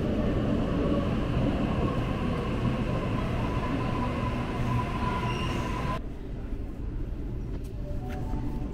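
Rumble of a moving train with a steady whine that grows louder, then changes abruptly about six seconds in to a quieter rumble.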